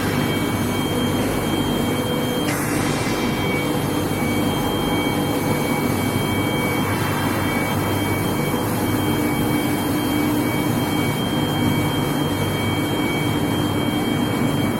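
Long-bar induction hardening and tempering line running: steady industrial machine noise with two thin, steady high-pitched whines over a low hum.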